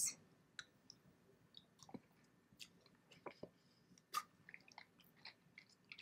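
Faint, scattered mouth clicks of a person chewing a bite of ice cream sandwich, a brown sugar cookie with strawberry ice cream.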